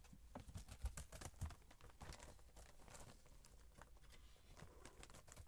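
Faint, irregular scuffling and scratching of kittens' paws on carpet as they play, with two soft thumps about a second in.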